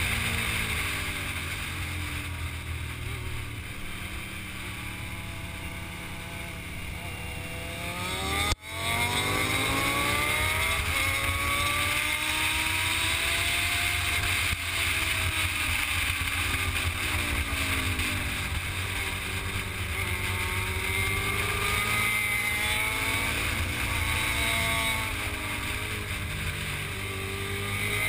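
Motorcycle engine heard from the rider's own bike, its revs rising and falling through the bends, over steady wind rush on the microphone. There is a sudden brief break in the sound about eight and a half seconds in.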